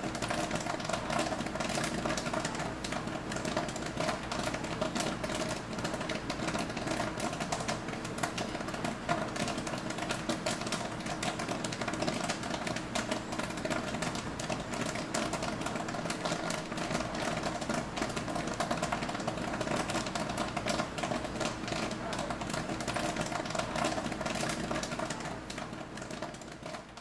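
Theater-style concession popcorn machine popping: a dense, fast crackle of kernels over a steady machine hum, fading out near the end.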